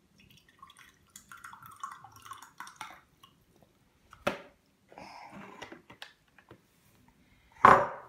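Milkshake pouring from a plastic jug through a toy dessert maker's spout into a mug, trickling and splashing for the first three seconds. Then come handling sounds: a sharp knock about four seconds in, some scraping, and a louder knock just before the end.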